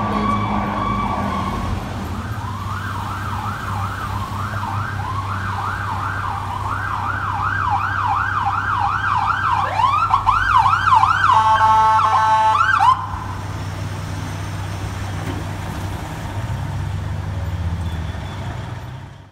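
Emergency vehicle electronic sirens: a held high tone, then a yelp of rising sweeps about three a second, then a faster yelp with a horn blast on top that cuts off suddenly about 13 seconds in. A heavy engine's low rumble runs underneath throughout.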